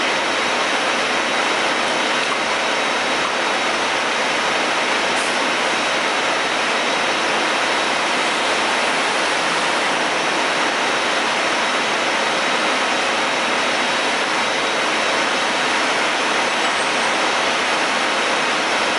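Diesel fuel rushing from a truck-stop pump nozzle into a semi truck's fuel tank: a loud, steady hiss.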